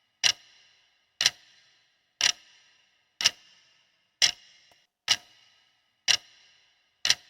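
Clock-tick sound effect of a quiz countdown timer: a sharp tick about once a second, counting down the time allowed to answer.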